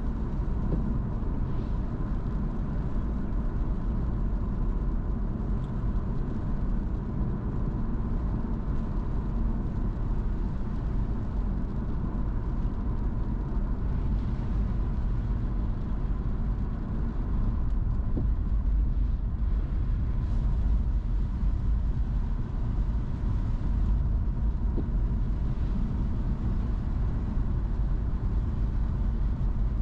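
A car being driven, with a steady low rumble of road and engine noise and a faint steady high tone.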